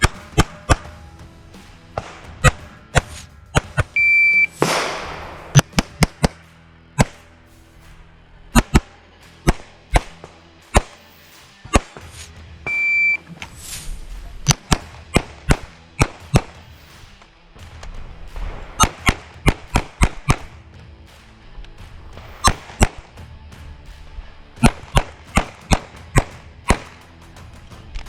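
A CZ 75 TS Czechmate competition pistol fired in rapid strings of shots, each string started by a shot timer's high beep, twice: about 4 s and 13 s in. Background music plays underneath.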